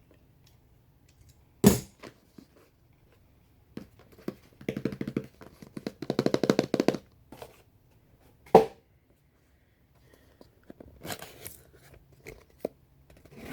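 Packaging and kit contents being handled during an unboxing: two sharp knocks, and a few seconds of rapid rasping clicks in between.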